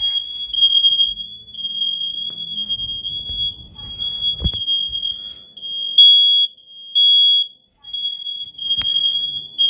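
Piezo smoke alarm sounding its shrill high-pitched alarm tone almost without a break, briefly cutting out a little before 8 s. Two sharp knocks are heard, about halfway through and near the end.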